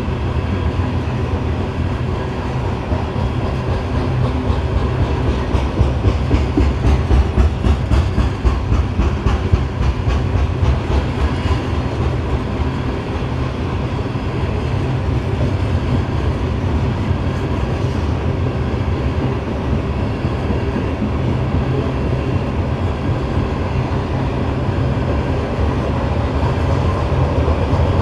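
BNSF coal train's hopper cars rolling past, a steady rumble of steel wheels on rail with rapid clicking over the rail joints, a little louder a few seconds in.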